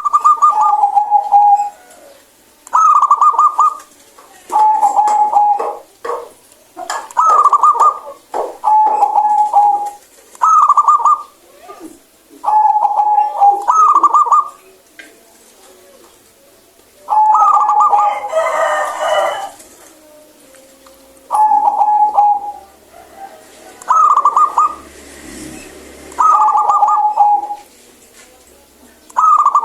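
Zebra dove (perkutut) cooing loudly and repeatedly: short phrases every second or two, each stepping down from a higher note to a lower one, with a brief pause partway through.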